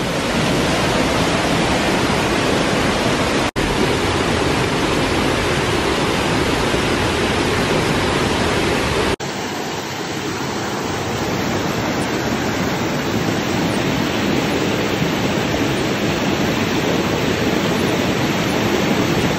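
Steady rush of white water from a waterfall cascading over rocks. It drops out for an instant about three and a half seconds in and again about nine seconds in, after which it runs slightly quieter and thinner.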